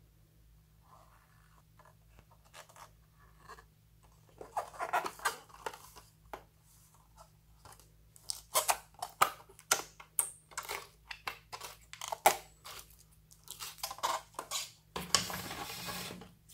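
Clear glitter slime with foam beads being handled and squeezed by hand, giving a run of sharp, irregular wet crackles and pops. They start about four seconds in and grow thicker, then end in a denser crackling rush lasting about a second and a half near the end.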